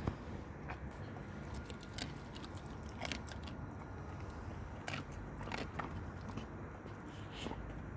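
A dog chewing and crunching bony chicken pieces (shoulder and wing), with irregular sharp crunches a second or so apart.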